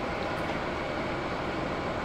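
Airbus A321-200's jet engines running at taxi power as the airliner rolls slowly along: a steady, even rumble.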